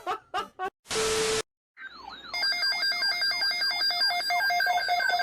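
Brief voice fragments and a short loud burst of noise. From about two seconds in comes the warbling digital data burst of an Emergency Alert System SAME header, two alternating steady tones, with a quickly repeating falling chirp over it.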